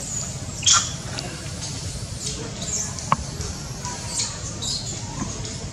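Short high-pitched animal squeaks over a steady low rumble, the loudest about half a second in, with a single sharp click about three seconds in.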